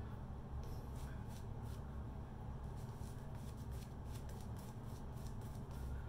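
Shaving brush working lather onto the face: a quick run of soft, scratchy bristle strokes on skin and stubble, over a low steady hum.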